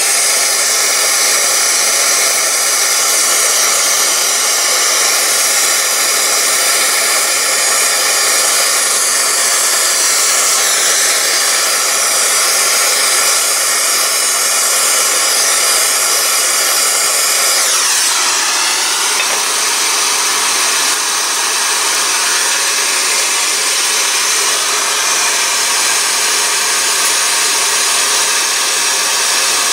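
Steady loud rushing noise, like a running blower or fan, with its tone sweeping downward once about eighteen seconds in.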